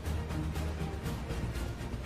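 Music with a deep sustained bass and a steady beat.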